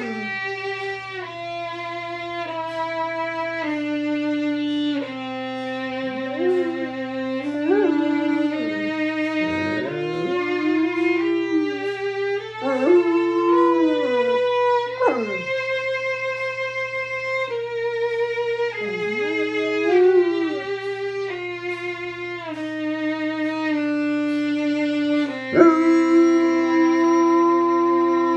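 A violin plays slow, held notes while an Alaskan malamute howls along, several sliding howls rising and falling in pitch over the notes; one sharp howl starts loudly near the end.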